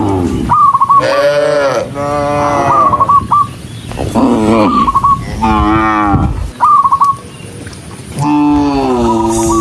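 A herd of cattle mooing one after another: about six long, loud moos, several sliding down in pitch, with short higher calls between them.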